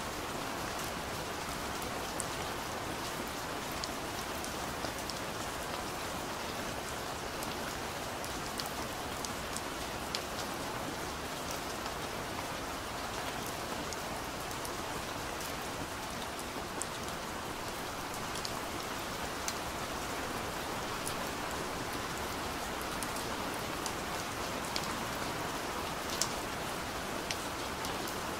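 Steady rainfall, an even wash of rain noise with sharper single drips standing out now and then.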